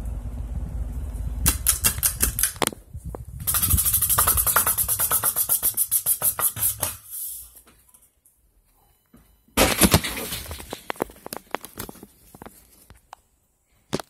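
Emerson ceiling fan motor humming low and steady, then two loud bursts of rapid clicking, about nine clicks a second, each slowing and dying away: one from about a second and a half in, the other near ten seconds. A single sharp click comes at the very end.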